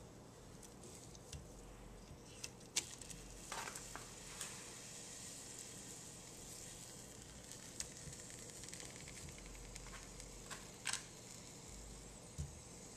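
Chunks of raw beef stew meat dropped into a stainless steel sauté pan and pressed into it by hand, giving scattered soft clicks and knocks over a faint sizzle.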